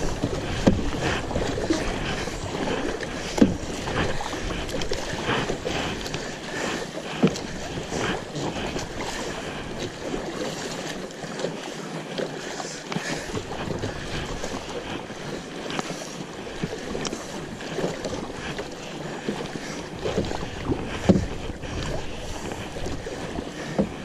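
River water rushing and splashing around a kayak in rough water, with a sharp paddle splash now and then. Wind noise on the microphone.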